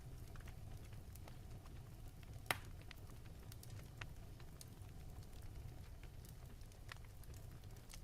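Crackling log fire: a low steady rumble with scattered sharp pops and snaps, the loudest pop about two and a half seconds in.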